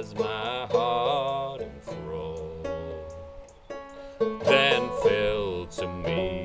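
Five-string banjo played clawhammer style in a double C tuning with the fifth string dropped to e, tuned down to about c#AEAB, with a man singing a slow melody over it. The voice drops out for a couple of seconds in the middle, leaving the banjo alone.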